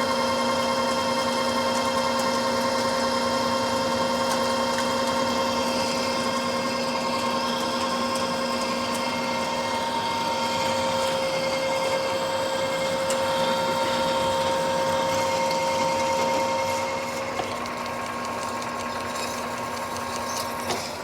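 Precision Matthews manual lathe running under power feed on a facing cut across a pipe flange, a steady mechanical whine from its drive and gearing with the hiss of the cut. About 17 seconds in the sound drops a little quieter, while the machine keeps running.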